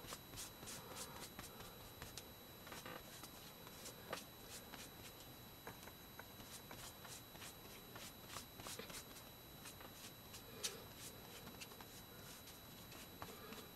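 Faint, irregular light taps and rustles of paper being handled as paint is dabbed onto an old book page and picked up from a palette.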